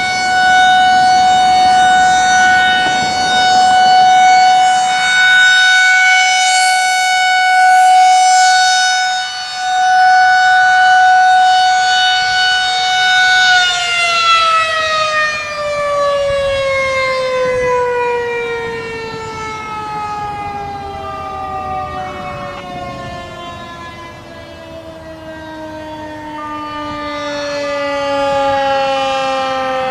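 Whelen 2001 electronic outdoor warning siren sounding the steady alert tone, swelling and fading in loudness. About halfway through, the tone begins a long falling wind-down that marks the end of the alert cycle. Other, more distant warning sirens wind down with it.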